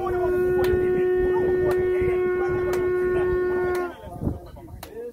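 A shofar (ram's horn) blown in one long, steady blast lasting about four seconds, which stops a little before the end.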